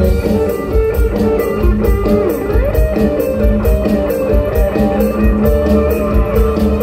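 Live mor lam band playing an instrumental passage through a loud PA: a plucked-string lead melody with bending notes over bass and a steady drum beat.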